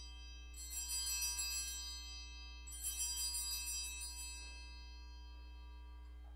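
Altar bells, a cluster of small sanctus bells, shaken by a server. They ring twice, about half a second in and again under three seconds in, each ring fading out, as the signal of the elevation of the host at the consecration.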